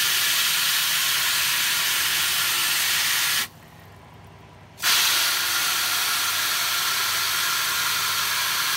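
Garden hose spray nozzle on its shower setting spraying water into an empty black plastic tray, a steady hiss of water spattering on plastic. It stops for about a second and a half in the middle, then starts again.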